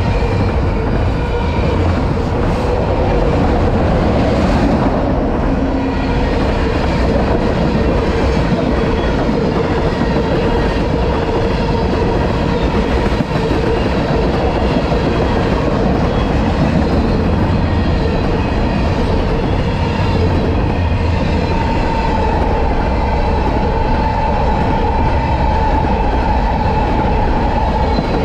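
Freight train cars, autoracks and then tank cars, rolling steadily past a level crossing: a continuous rumble of steel wheels on rail with clickety-clack over the joints. A steady whine runs over it, with a second higher tone joining near the end.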